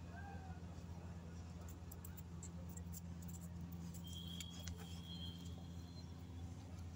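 Faint scattered clicks and scrapes of a Rottweiler nosing and mouthing a hard plastic bone toy on a concrete floor, over a steady low hum. A brief high whistle-like tone comes about four seconds in.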